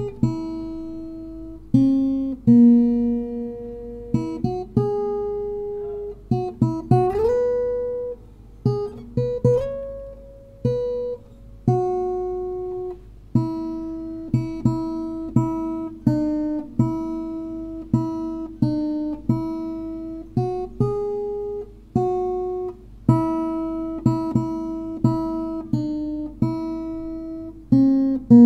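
Background music on plucked acoustic guitar: single notes and chords that ring and fade one after another, with a couple of notes sliding up in pitch.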